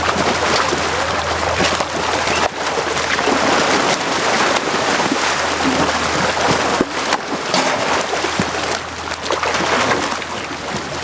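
Young crocodiles thrashing in shallow water as they are fed, a steady churning of water broken by many sharp splashes.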